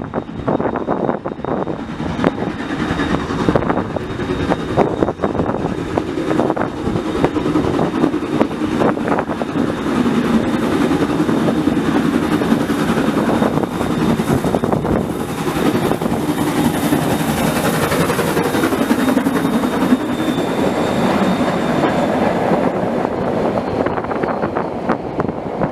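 A steam-hauled passenger train, led by New Zealand Railways Ja class 1271 and Ab class 608 steam locomotives, running through the station without stopping: a continuous loud rush of wheels on rails, with rapid clicks and clatter from the running gear and rail joints.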